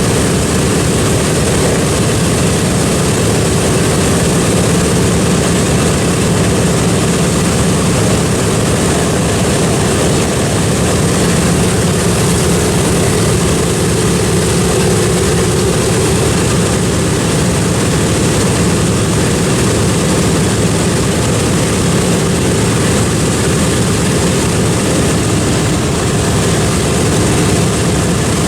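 Piston engines of a propeller-driven World War II warbird running loud and steady, a constant drone with no rise or fall.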